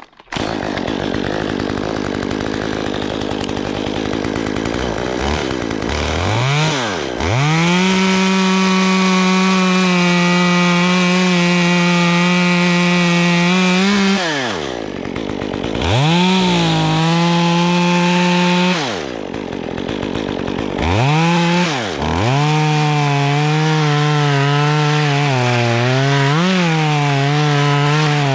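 Stihl chainsaw revved to full throttle three times, each run held for several seconds before the engine drops back. In the last run the pitch sits lower and wavers as the chain cuts into wood.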